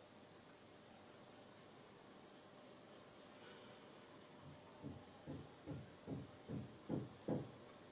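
A flat paintbrush dabbing and stroking paint onto card. After a near-silent start, there are about eight short soft brush strokes, roughly two a second, in the second half.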